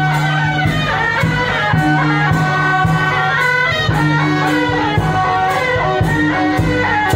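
Traditional Taiwanese temple-procession music: a sustained melody over a steady drum beat of about two strokes a second.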